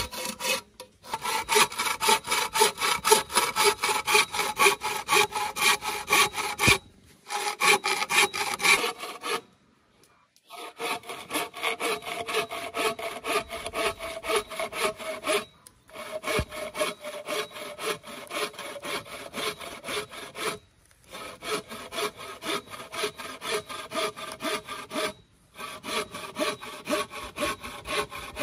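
Hand saw cutting through wood in quick, steady back-and-forth strokes, stopping briefly every few seconds.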